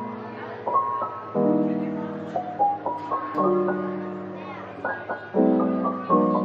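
Background piano music: slow chords struck every second or so, each fading before the next.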